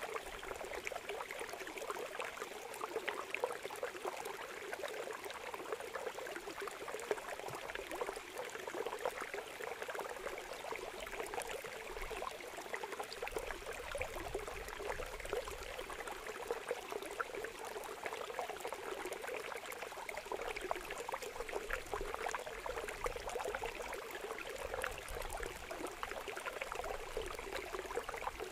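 Water rushing steadily through a narrow gap cut in a mud bank, splashing as it spills down.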